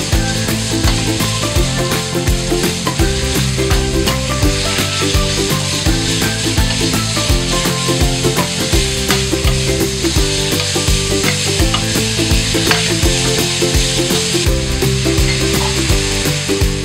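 Sliced pork frying in hot oil in a pot, sizzling steadily as it is stirred with a wooden spatula, over background music.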